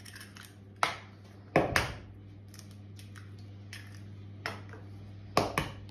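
Eggs being cracked on the rim of a plastic mixing bowl: a few sharp taps of shell on the rim, about a second in, twice near two seconds, and twice more near the end, over a low steady hum.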